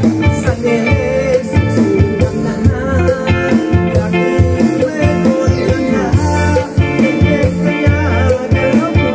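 Live band playing: a man sings into a microphone over electric guitar, keyboard and a steady drum-and-bass beat.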